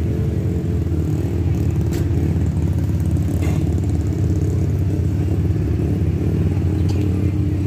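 A motorcycle engine runs steadily at idle close by, a low, even drone with a fast pulsing beat.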